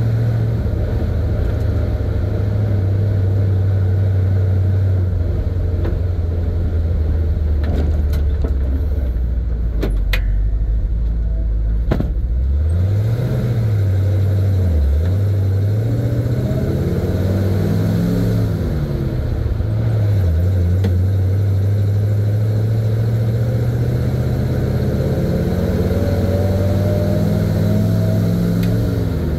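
A 1970 Chevy C50 dump truck's engine, heard from the cab. It runs steady, drops in pitch as the truck slows about twelve seconds in, then rises and falls in pitch several times as it pulls away through the gears, climbing again near the end.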